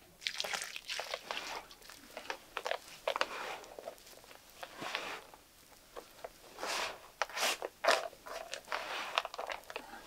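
Hands stirring dry feed of cracked corn and meal in a plastic basin: irregular rustling and crunching of the grain as it is turned over.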